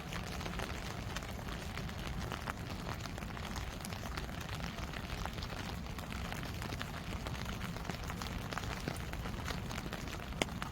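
Steady rainfall, with many separate drops ticking close by and one sharper drop hit near the end.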